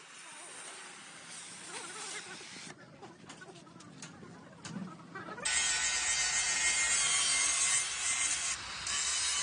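Light workshop noise with a few clicks, then, about five and a half seconds in, a power tool working metal starts suddenly: a loud, steady rasping noise with a high whine running through it.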